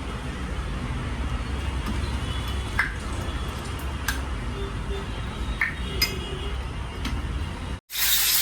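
Metal tools and parts clinking while a motorcycle cylinder head is worked on: a few sharp separate clinks over a low steady hum. Near the end the sound cuts out abruptly and a loud steady hiss begins.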